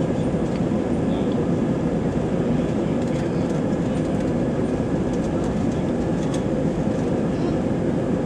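Inside the cabin of an Airbus A319 jet taxiing: the steady hum of the jet engines mixed with the rumble of the landing gear rolling over the pavement, with a few faint ticks.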